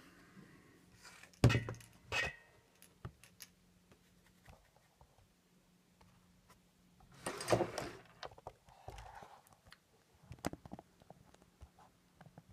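Handling noise from a laptop being moved on a wooden table: a sharp knock about a second and a half in and a smaller one just after, a longer rustle about seven seconds in that is the loudest sound, then scattered small clicks.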